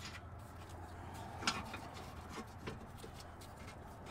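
A few light metallic clicks and knocks as a bolt and the rear lower control arm are handled and fitted at the suspension mount. The loudest click comes about a second and a half in.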